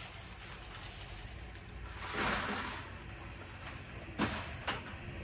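Tokens and quarters poured from a bucket into a coin sorting machine, metal coins sliding and rattling, with a swell of rushing noise about two seconds in and a short clatter just after four seconds.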